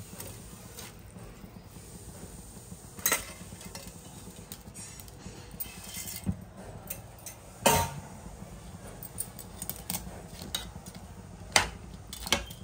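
Metal tongs clinking and scraping against a stainless-steel pot while dry noodles are dropped into boiling water and stirred, with a few sharper clanks about three, eight and twelve seconds in, over a steady low background.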